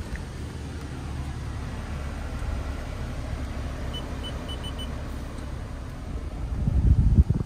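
Climate-control panel of a Toyota Alphard beeping five times in quick succession as its buttons are pressed, over a steady low hum in the cabin. A louder low rumble swells near the end.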